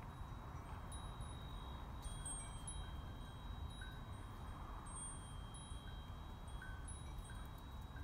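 A wind chime ringing gently: a few long-held high tones with scattered short, higher metallic notes struck at irregular moments, over a steady low rumble.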